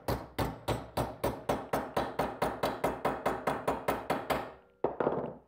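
Hammer striking a metal bracket on the workbench to bend it and get it fairly straight: a run of rapid, even blows with a metallic ring, about four to five a second, stopping about four and a half seconds in. A short, different noise follows near the end.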